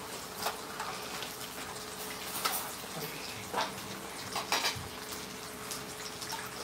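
Steady sizzling hiss of food cooking in a pan on a portable gas stove, with a faint steady hum underneath. Chopsticks and tongs clink and tap against plates and plastic containers several times.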